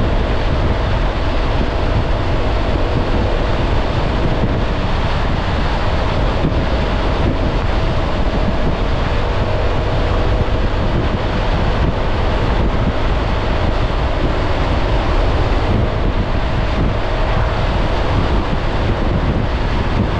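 Wind buffeting the microphone of a Honda ADV 350 scooter riding along at a steady speed, with its single-cylinder engine droning evenly underneath.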